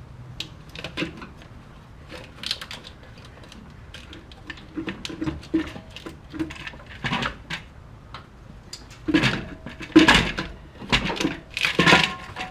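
Irregular metallic clanks, knocks and scrapes of a prying tool working a small-block Chevy's intake manifold loose from its gasket sealer, with a burst of louder knocks near the end.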